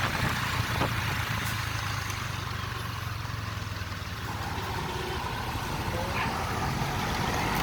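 Tour bus's diesel engine idling steadily, a low constant hum under general background noise.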